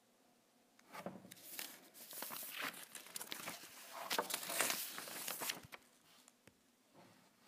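Rustling, crinkling handling noise close to the microphone, starting about a second in and stopping after about five seconds, followed by a few faint clicks.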